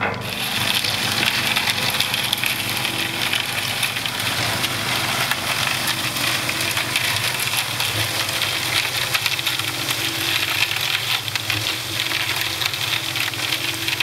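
Dilapidated belt-driven concrete mixer running: the steady rattle and hiss of concrete and gravel tumbling in the turning drum, over the low hum of the drive.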